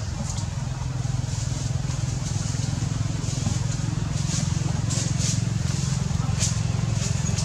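A small engine running steadily with a low hum, with short faint hissy crackles above it, more of them in the second half.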